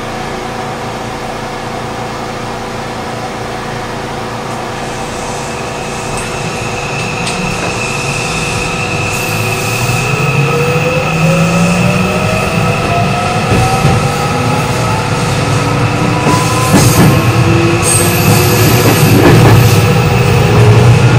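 JR West 207 series electric train pulling away from a stop, heard from inside the passenger car: a steady electrical hum at first, then from about ten seconds in the traction motors' whine rises in pitch in several tones as the train speeds up. Wheel and running rumble grows louder throughout.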